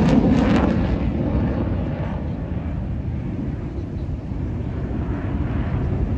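Jet aircraft roar fading after a pass, settling into a low rumble that grows slightly louder again near the end.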